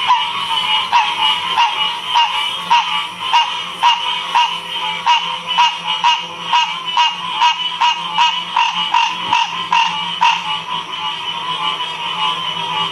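Frog chorus: one frog calls over and over in a regular rhythm, a little under twice a second, over a continuous high-pitched chorus. The rhythmic calls stop about ten seconds in while the chorus carries on.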